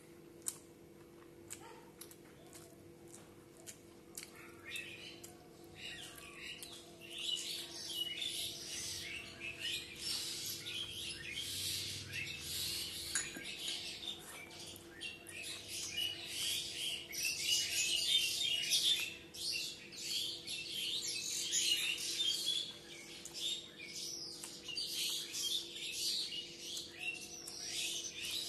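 Small birds chirping and twittering busily, starting a few seconds in and keeping on, over soft clicks and smacks of eating by hand and chewing.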